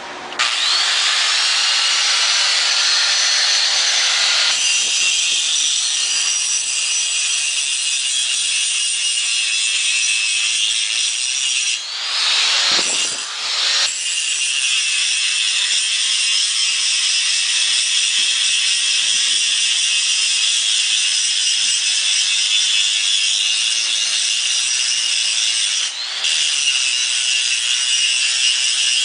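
Angle grinder spinning up and grinding steel, a loud steady abrasive hiss. About halfway through the motor's pitch dips and recovers, and the sound briefly drops again near the end.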